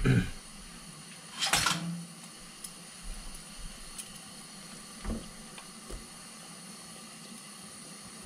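Spicy braised chicken simmering in a frying pan, with a knock at the start, a louder clatter about a second and a half in, and a few lighter taps of a utensil against the pan as the contents are stirred.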